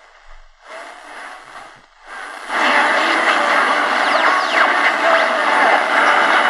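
Realistic DX-350 portable radio's speaker hissing with medium-wave static while tuned to a weak distant station. It cuts in briefly near the first second, then jumps much louder about two and a half seconds in as the passive loop antenna is brought up, with faint whistles sliding up and down through the hiss.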